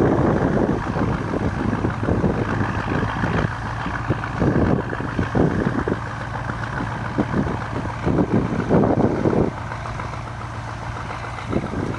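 Two small diesel locomotives running with a steady low hum as they haul a plough brake van, with wind gusting on the microphone at irregular moments, strongest about nine seconds in.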